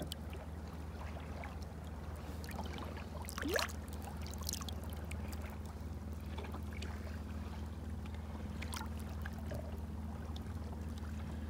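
Boat engine ticking over with a steady low hum, while water laps by the hull with a few small splashes, the clearest about three and a half seconds in.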